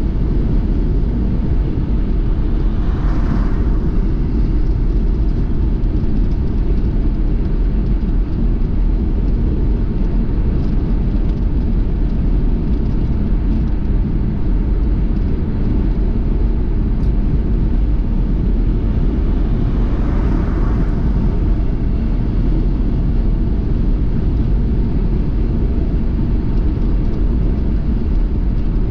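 Car driving on the road: a steady, loud low rumble of road and engine noise, with two brief louder swells of higher sound, about three seconds in and again about twenty seconds in.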